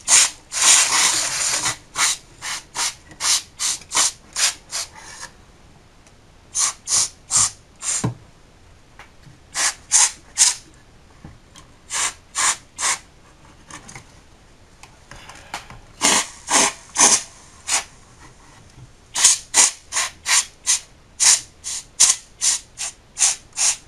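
A can of compressed air sprayed in many short hissing bursts, in quick runs with pauses between and one longer blast at the start, blowing dust out of a computer's CPU cooling fan and heatsink.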